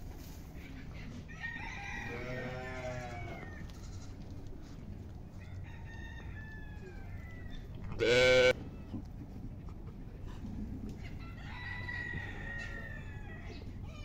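Farm animals calling: roosters crowing and sheep bleating, with one short, louder call about eight seconds in.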